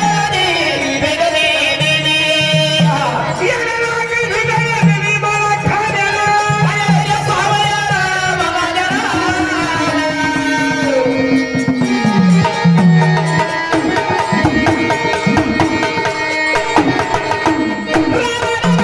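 Marathi devotional folk song: a voice sings long, bending, held lines over steady hand-drum strokes and melodic instrumental accompaniment.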